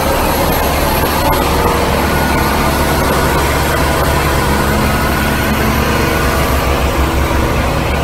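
Heavy diesel construction machinery running steadily: a loud, even engine drone with a deep low hum that holds without change.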